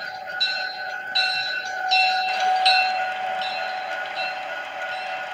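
Model freight train rolling past: covered hopper cars clicking over the rail joints about every three-quarters of a second, over a steady whine.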